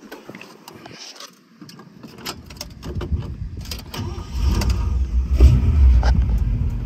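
Scattered clicks of handling, then the 1957 Chevrolet Bel Air's 283 V8 is started: low sound builds from about three seconds in and the engine is running steadily from a little past four seconds.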